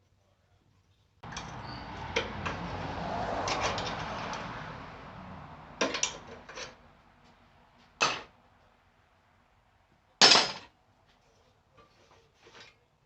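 A rushing noise swells and fades over about five seconds, then a few sharp metal knocks follow, the loudest about ten seconds in, as parts are worked on and set down.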